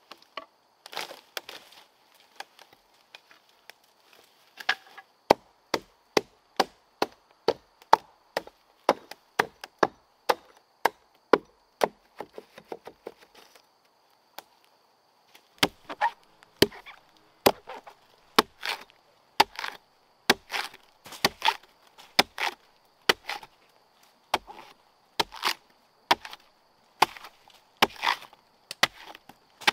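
Wood being chopped with repeated sharp strikes, roughly one to two a second, with a short pause about halfway through. A faint steady high-pitched buzz sits behind the strikes.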